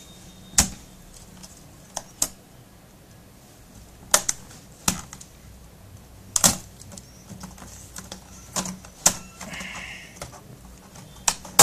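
Plastic clips of a Dell Studio 1458 laptop's top panel snapping loose as it is pried up with a small screwdriver: a crackling string of sharp, irregular clicks.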